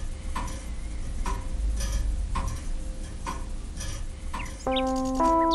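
Clock ticking steadily, about one tick a second, over a low hum. Piano music comes in near the end.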